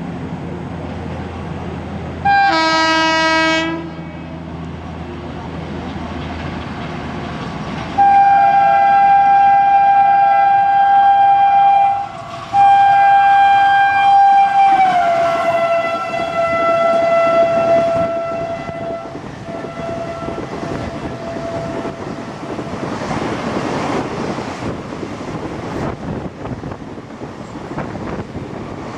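Indian Railways WAP4 electric locomotive sounding its horn at speed: a short blast, then two long blasts, the second dropping in pitch as the locomotive passes. The horn fades into the rushing, rattling noise of the coaches going by.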